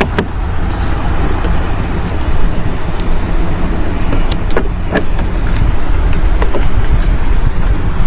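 Steady low rumble of wind buffeting the microphone, with a few sharp clicks and taps as parts of a switch panel are pressed into place.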